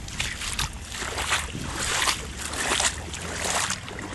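Water sloshing and swishing around a man's legs as he wades through knee-deep water, in uneven surges about every half second to a second.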